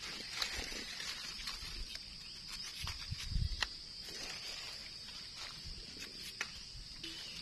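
Dry eucalyptus leaf litter crackling and rustling as gloved hands pick mushrooms out of it and handle them, with a few soft low thumps about three seconds in. A steady high-pitched hum runs underneath.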